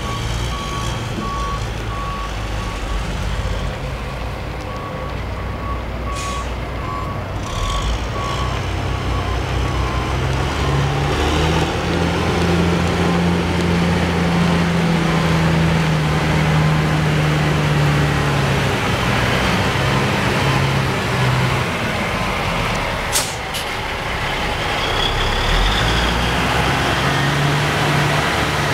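An Autocar heavy truck's diesel engine runs and revs, rising in pitch about halfway through and then easing off. A backup alarm beeps through the first several seconds. Short air-brake hisses come twice early on and once near the end.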